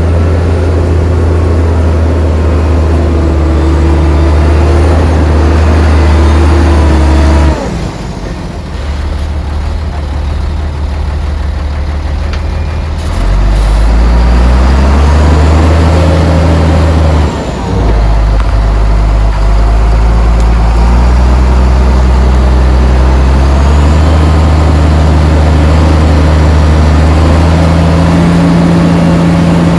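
Heavy diesel engine of earth-moving machinery working under load, its revs rising and falling. The engine note drops sharply about a quarter of the way in, climbs back, dips briefly near the middle, then rises steadily toward the end.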